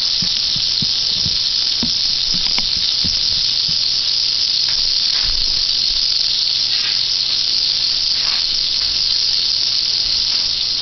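Butter sizzling as it melts and foams in a non-stick frying pan: a steady high hiss with scattered faint crackles.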